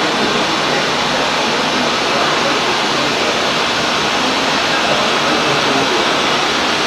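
Collating and wrapping machinery running: a steady, even rushing noise with no distinct rhythm or clicks.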